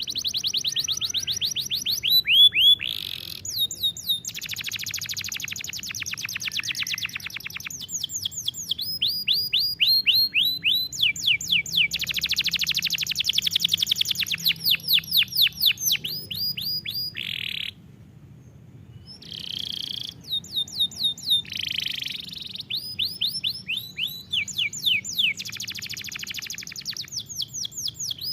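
Canary singing a long song of fast trills and rolls made of quickly repeated sweeping notes, phrase after phrase, with a short break about two-thirds of the way through.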